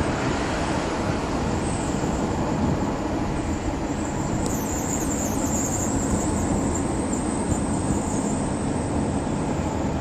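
Car driving, with steady road and tyre rumble and a thin high-pitched whine that grows louder about halfway through. The whine is the weird noise the owner hears from the right rear wheel.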